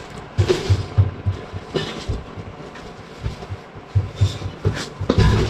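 Irregular dull low thumps, with a few sharper knocks among them, as of objects or feet bumping about.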